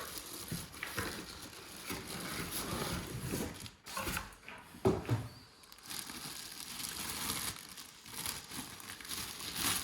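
Packaging crinkling and rustling, with light knocks, as the parts of a new cordless stick vacuum are unpacked and handled.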